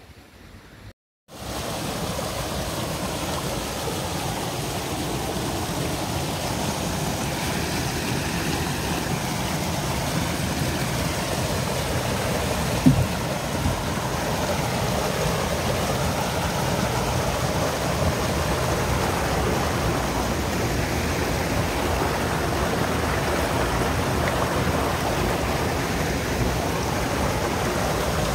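Water rushing steadily, as from a stream or weir, with one brief knock about halfway through.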